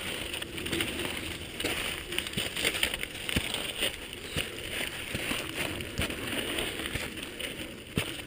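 Footsteps and dog paws crunching and scraping on a loose, stony trail, with irregular small clicks and crackles and general rustle from walking with the dogs.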